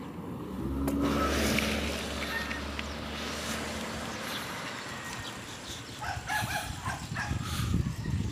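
A car passing close by: its engine and tyre noise swell about half a second in, are loudest a second or so in, and fade away over the next few seconds.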